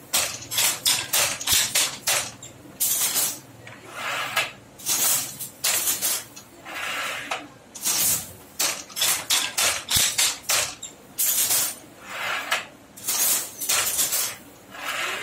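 Wooden handloom being worked, fitted with a border-turning mechanism: a quick, irregular run of clacks and swishes from its moving parts, several to the second.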